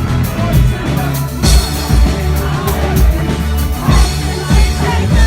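A rock band playing live and loud, with a steady, heavy kick-drum beat under bass and guitars.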